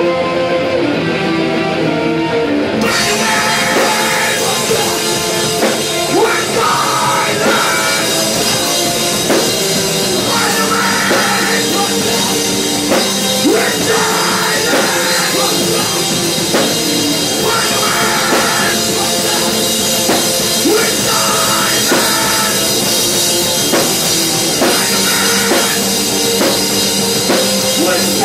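Live rock band playing: electric guitar and bass ring on their own for about the first three seconds, then the drum kit crashes in and the full band plays on with steady drums and cymbals.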